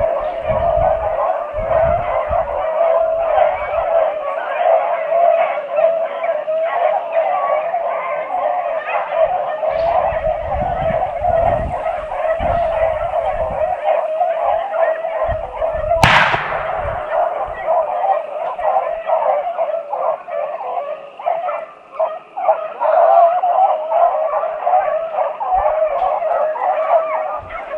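A pack of beagles baying continuously as they run a rabbit, with a single gunshot about sixteen seconds in.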